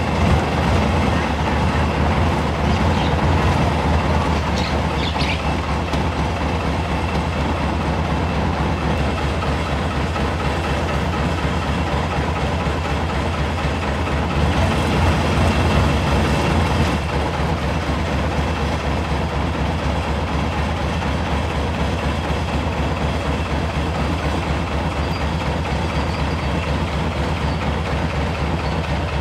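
Long-tail boat's engine running steadily under way, a loud continuous drone that swells briefly about halfway through.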